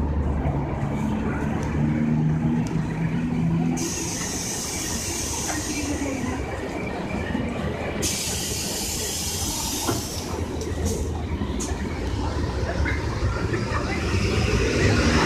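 Street traffic dominated by a city bus close by: its engine running with a low hum, two long hisses of air from about four to ten seconds in, and a high squeal rising near the end.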